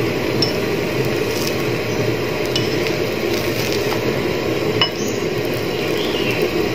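Kerala porotta cooking on a hot griddle: a steady sizzling hiss, with a few light clicks of a spatula against the griddle as the flatbread is turned.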